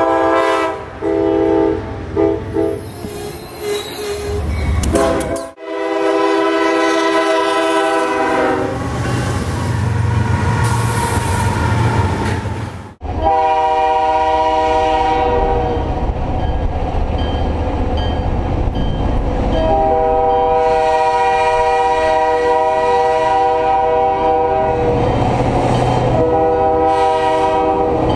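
Diesel locomotive air horns blowing, in two or three separate clips: first a passenger train's horn in short and long blasts, then, about 13 s in, the horn of a Canadian Pacific EMD GP38-2 leading a freight train, sounding several long blasts over the rumble of the approaching train.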